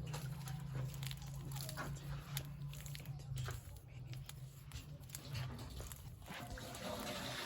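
Irregular crunching and crackling as turmeric rhizomes and soil are handled during harvest, over a steady low hum that fades about six seconds in.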